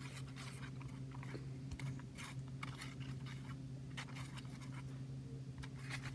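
Hamster food pellets and glue being stirred in a bowl: irregular crunching clicks, several a second, over a steady low hum.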